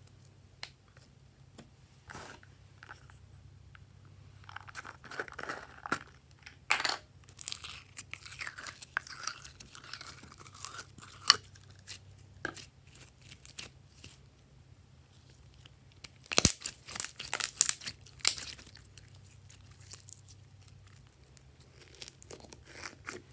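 Hands stretching and squishing sticky slime mixed with glitter and sequins: irregular wet crackles, pops and crunches. The crackling comes in two busy spells, a few seconds in and again about two-thirds of the way through.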